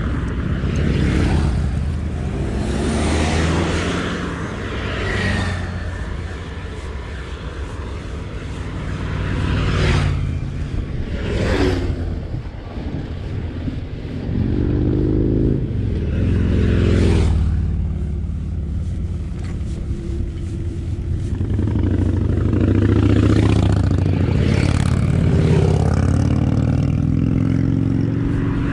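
Wind rumbling on the microphone of a moving road bicycle, with motor vehicles, cars and motorcycles, passing by a few times and swelling then fading as they go.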